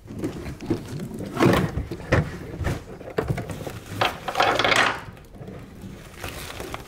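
Handling noise of braided fuel lines being lifted and moved over a bare metal car floor: a few knocks and rubs, then a longer scraping rustle about four seconds in.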